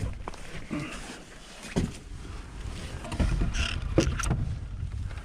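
A person moving about: rustling and scattered knocks over a low rumble that grows heavier about three seconds in.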